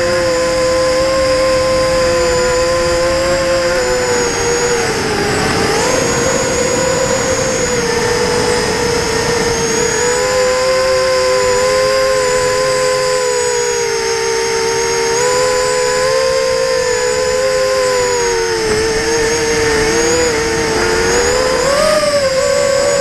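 Brushless motors and propellers of an FPV quadcopter, picked up by its onboard camera: a steady buzzing whine whose pitch wavers up and down with throttle, dipping about five seconds in and rising near the end.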